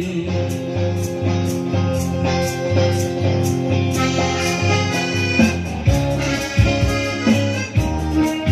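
Instrumental music interlude of a Hindi film-style song: held reed or keyboard notes over a bass line and a steady beat, with no singing.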